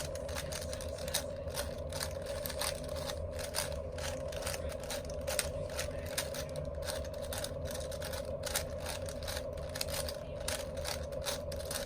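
4x4 Rubik's cube being turned by hand: a run of irregular plastic clicks and clacks as the layers are twisted, over a steady low hum.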